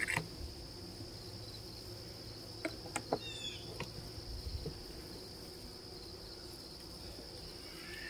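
Steady high-pitched chirring of insects, crickets by the sound of it, with a few faint taps about three seconds in.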